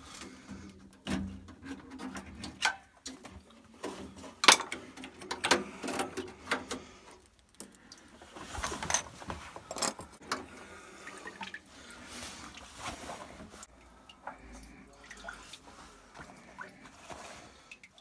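Irregular clicks, knocks and rattles of a Worcester Bosch boiler's plastic flow turbine adapter and its wiring being worked loose and handled, with one sharp knock about four and a half seconds in. Water drips and trickles from the opened water connection.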